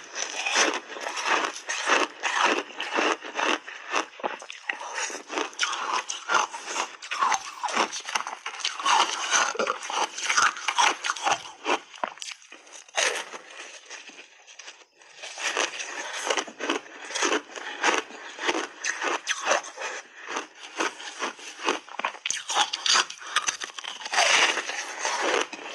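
Crunchy block ice being chewed close to the microphone: dense, rapid crackling crunches, easing off for about two seconds a little past halfway before starting again.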